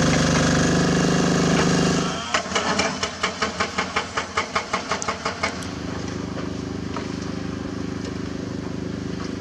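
Caterpillar hydraulic excavator's diesel engine running loud and steady, then a fast series of sharp hammering blows, about five a second, for some three seconds: a hydraulic rock breaker pounding limestone. The blows stop, leaving the engine running with a steady drone.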